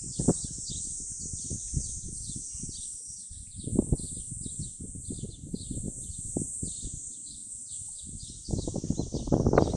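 Insects chirping in a steady high-pitched drone that pulses rapidly, over irregular low clicks and rustles. About eight and a half seconds in, a louder dense rustling starts and becomes the loudest sound.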